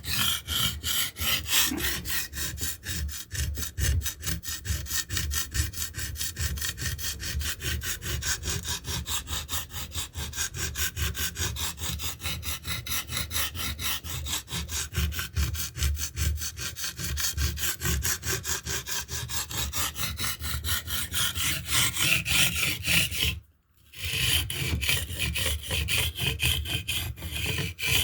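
Steel blade being stroked rapidly back and forth on a limestone sharpening stone, grinding in a secondary bevel: an even, rhythmic rasping that stops briefly about three-quarters of the way through, then carries on.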